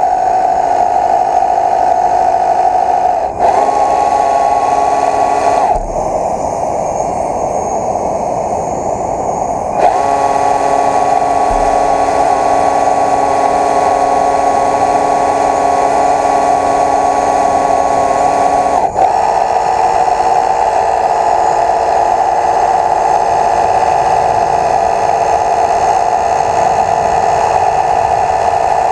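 Steady whine of small electric motors, its pitch shifting suddenly several times.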